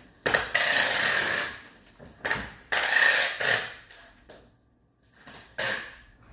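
Hand work on a copier's fuser unit: two noisy rubbing or scraping sounds about a second long each, about two and a half seconds apart, with shorter knocks and clatters of parts around them.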